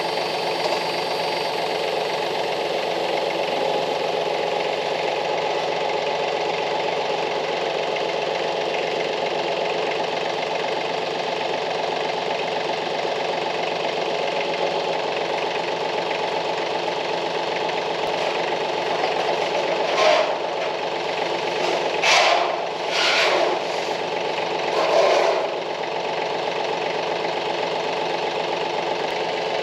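Compact tractor's engine running steadily at idle while its loader boom holds a metal roof panel. About two-thirds of the way in, four short louder noises break over the engine's drone.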